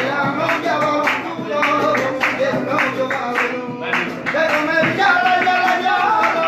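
Acoustic guitar strummed in a flamenco rhythm, with a man singing along; the singing stands out more in the second half.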